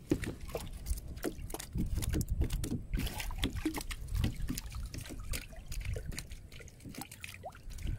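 River water splashing and dripping in irregular small strokes as a spear is handled at the surface, over a low rumble.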